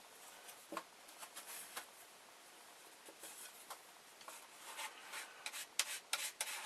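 Faint scraping and light tapping of a small tool spreading conductive wire glue and pressing it into holes in a board, with one slightly sharper tap under a second in and the scrapes coming more often toward the end.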